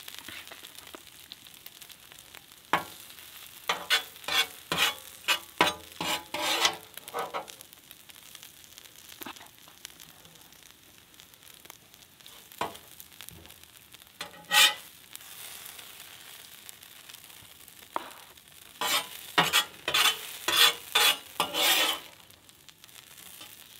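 Metal spatula scraping across the steel cooktop of a Blackstone 17-inch griddle as food is lifted off it: a quick run of strokes a few seconds in, one loud scrape midway, and another run near the end. Food sizzles steadily on the hot griddle underneath.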